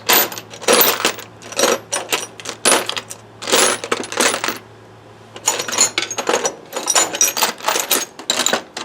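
Metal hand tools (sockets, wrenches, extensions) clinking and clattering as a tool bag is rummaged through, with a short pause about halfway.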